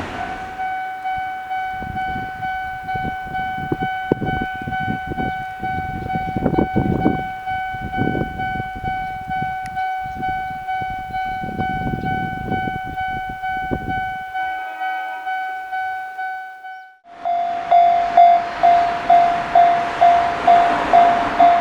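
Electronic level-crossing warning bell on the Sanyo Main Line ringing in a steady repeating ding, about two strokes a second, while a train rumbles and clatters across the crossing. The train noise stops about fourteen seconds in. A few seconds later the bell drops out briefly, then comes back louder over a loud rushing noise.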